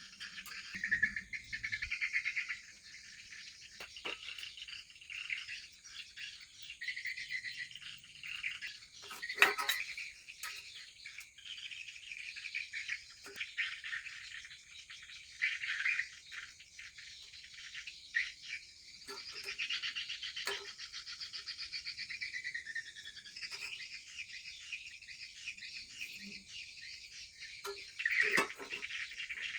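Birds chirping and singing, with a few sharp knocks, the loudest about a third of the way in and another near the end.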